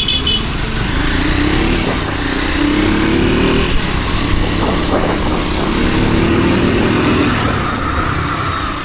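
Triumph Scrambler 400X's single-cylinder engine pulling under acceleration while riding, its note rising twice as it runs up through the revs.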